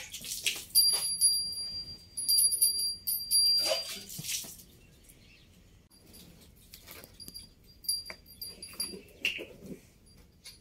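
A cow being hand-milked: short hissing streams of milk squirt into a steel bowl, then later into a plastic bottle. High ringing chirps repeat over the first few seconds and come back fainter later.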